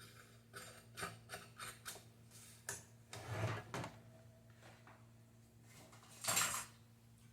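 Small clicks, taps and knocks of electric fan parts being handled and fitted together during reassembly, with two longer scraping or rustling sounds, the louder near the end. A faint steady low hum runs underneath.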